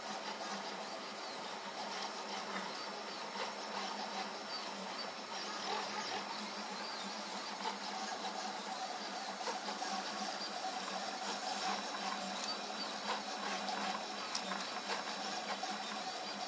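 DIY box-frame Prusa i3 3D printer printing at 85 mm/s: its stepper motors whine and warble in shifting pitches as the print head and bed move, over a steady hum.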